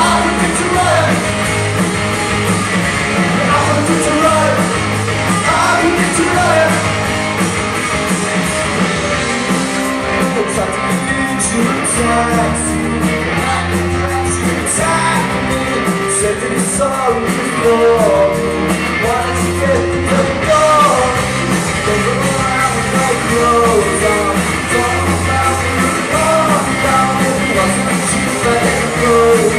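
Live rock band playing a cover song, a singer's voice over guitar.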